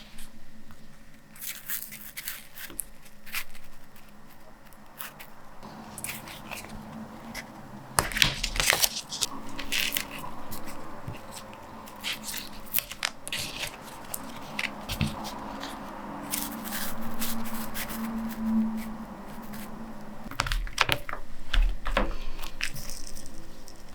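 Hands handling printmaking supplies on a work table while setting up for inking: scattered taps and clicks, with scraping and paper-like rustling. The busiest handling comes about a third of the way in and again near the end.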